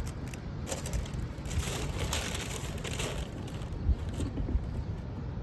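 Tissue paper rustling and crinkling as a pair of sneakers is unwrapped in the shoebox, busiest in the first three seconds, with a soft knock about four seconds in.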